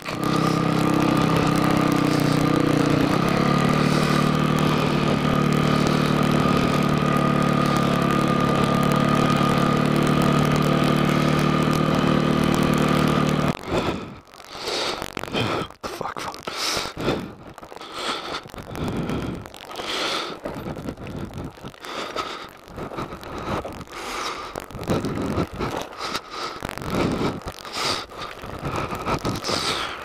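Dirt bike's single-cylinder engine (Yamaha WR450F) running at a steady speed, cut off suddenly about 13 seconds in. After that the bike coasts, its tyres rolling over rocks and gravel with uneven scrapes and knocks.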